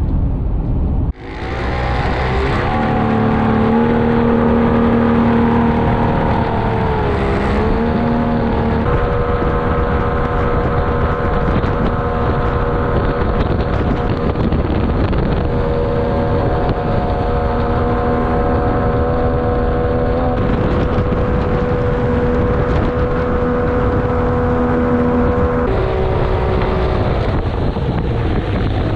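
Inflatable jetboat's engine running steadily under way, its pitch dipping and recovering about a quarter of the way in and again near the end.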